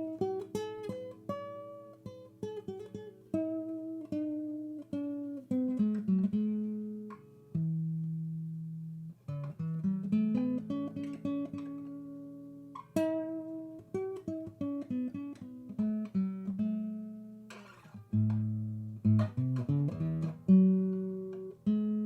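Background music: acoustic guitar, plucked notes and held chords that ring out and fade.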